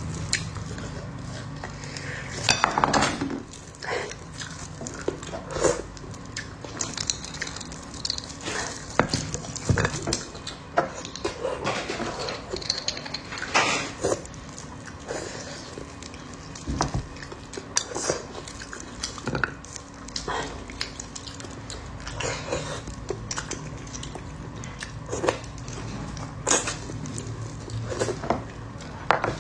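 Close-up eating sounds of braised beef bone marrow: irregular wet mouth smacks and clicks as the marrow is sucked and chewed from the bone, with a small metal spoon tapping and scraping against bone and plate. A faint steady hum runs underneath.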